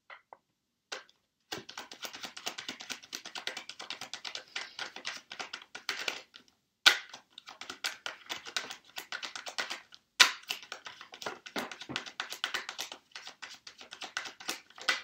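A Rider-Waite tarot deck shuffled by hand: a fast, continuous run of card flicks and slaps, broken twice by a brief pause, with a sharp snap as the shuffling picks up again each time.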